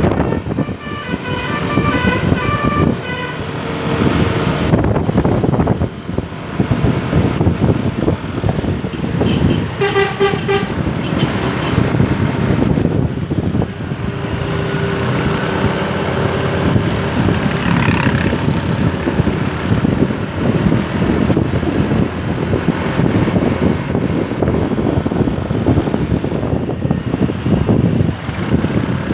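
A bus's basuri telolet air horn plays a quick run of stepped notes in the first few seconds and a short chord about ten seconds in, with a few fainter brief tones later. Steady engine, road and wind noise runs underneath.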